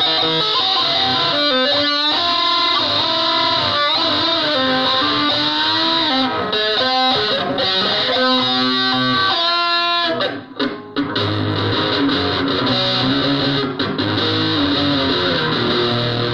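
Stratocaster-style electric guitar played through distortion: held notes that bend and slide in pitch, a short break about ten seconds in, then lower notes with more bass.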